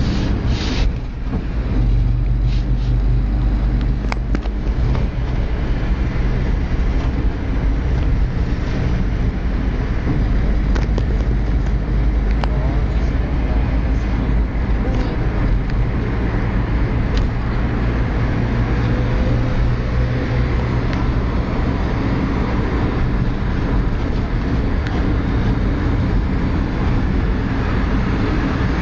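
Steady low rumble of a car driving along a city road: engine and tyre noise heard from inside the moving car, with other traffic alongside.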